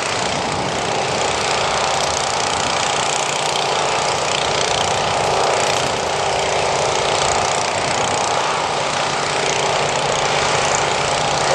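An engine running steadily, with an unchanging hum and a wide hiss over it.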